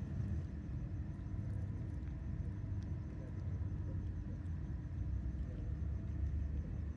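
Steady low rumble with no distinct events, a few faint ticks above it.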